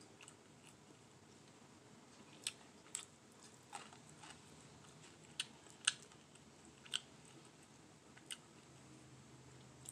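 Quiet close-up eating sounds: chewing with about seven short, sharp mouth clicks and smacks scattered through.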